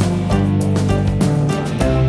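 Background music: held chords over a regular beat, changing chord near the end.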